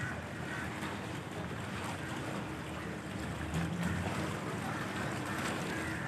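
Steady outdoor rumble with wind buffeting the microphone.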